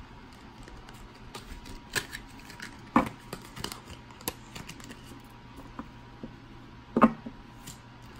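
Tarot cards being shuffled by hand: irregular light snaps and flicks of card stock, with two louder taps, one about three seconds in and one near the end.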